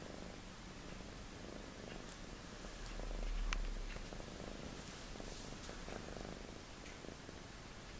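Ragdoll cat purring steadily up close. A brief low rumbling bump swells about three and a half seconds in.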